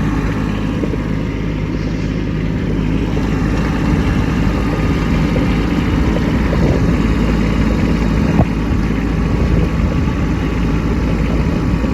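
Kubota B2601 compact tractor's three-cylinder diesel engine running steadily, with one brief sharp click about eight seconds in.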